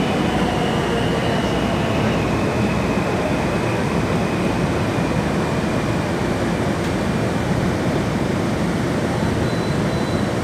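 Heard from inside a Washington Metro Silver Line railcar: the steady rumble of the train rolling and slowing as it pulls into a station. A faint high whine slides slightly lower in pitch and fades out about two seconds in.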